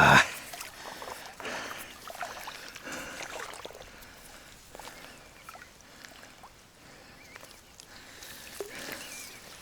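Water sloshing and splashing in uneven bursts as a person wades into a river. It opens with a short, loud burst, the loudest sound here.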